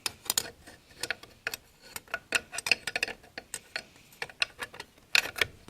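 Irregular light metallic clicks and clinks as steel and friction clutch plates of a 700R4 input drum's 3-4 clutch pack are handled and seated onto the drum's splines, with a quicker cluster of clicks near the end.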